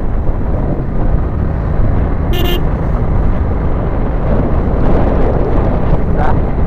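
Riding noise from a Yamaha MT15 motorcycle on the move: steady wind rush and engine running, with a short vehicle horn beep about two and a half seconds in and a fainter tone near the end.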